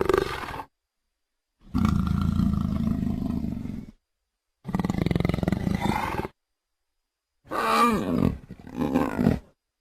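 Utahraptor creature sound effects: a series of separate dinosaur roars and growls, each followed by silence. The first ends just after the start. A long deep roar lasts about two seconds, and a shorter one follows. Near the end come two shrieking calls that sweep down in pitch.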